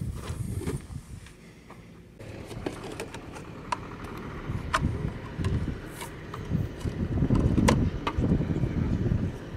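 A vehicle driving over rough ground: a low rumble with scattered sharp knocks and rattles, growing louder from about seven seconds in.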